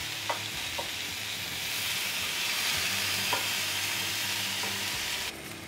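Impossible Burger plant-based patties sizzling steadily on the hot grill grate of a Ninja Foodi XL grill, with a few faint clicks. The sizzle cuts off suddenly near the end.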